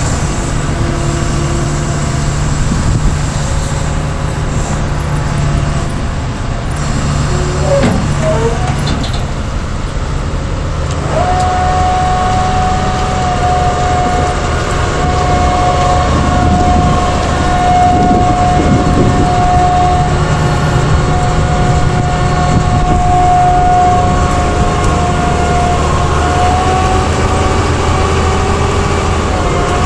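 Doosan DX140W wheeled excavator's diesel engine running steadily. About eleven seconds in, a steady high whine joins it and holds until near the end.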